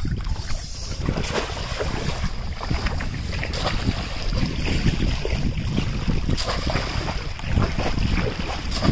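Splashing and sloshing of legs wading through shallow water, with a few sharp splashes as a bamboo polo fish trap is plunged into the water. Wind rumbles on the microphone underneath.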